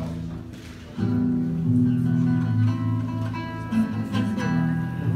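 Acoustic guitar playing chords, with a brief quieter dip at the start before the playing picks back up about a second in.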